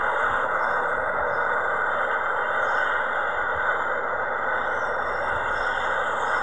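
Steady rushing roar of an Airbus A340's four jet engines as the airliner climbs out after takeoff.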